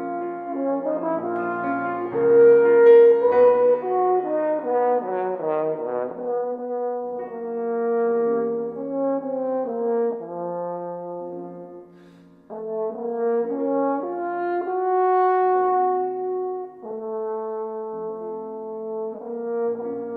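French horn playing a slow, sustained melody over Steinway grand piano accompaniment, with a brief break between phrases about twelve seconds in.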